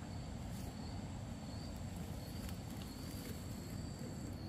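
Insects calling steadily in two high thin tones, the higher one stopping near the end, over a continuous low rumble.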